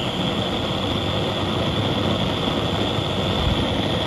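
Antique white-gas (liquid-fuel) blowtorch burner running, a steady rushing hiss of the preheated fuel burning as a gas. The burner is warmed up and nearly ready for use.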